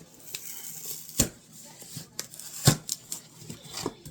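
Packaging being handled and opened: a cardboard Pop-Tarts variety-pack box and its wrapped packets. There are light rustling and scattered clicks, with two sharper knocks, one about a second in and a louder one near three seconds in.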